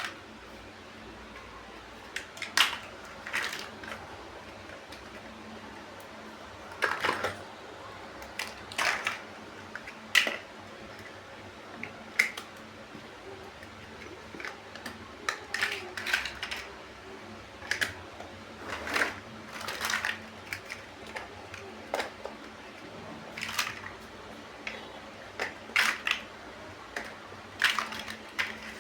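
Plastic LEGO-style building bricks being handled and pressed together: irregular sharp clicks and snaps, sometimes in quick clusters, with pauses between.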